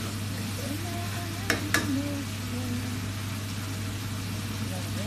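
Chicken frying in a pan: a steady sizzle, with a low steady hum underneath and two sharp clicks about a second and a half in.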